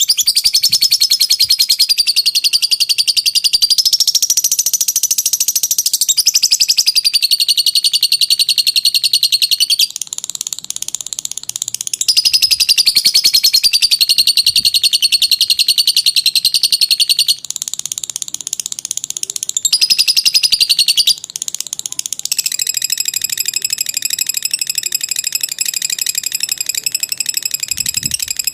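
Lovebird in 'ngekek panjang' song: long runs of very rapid, high-pitched chattering trills that waver up and down in pitch, broken by brief pauses. Near the end the chatter turns into a steadier, more even trill.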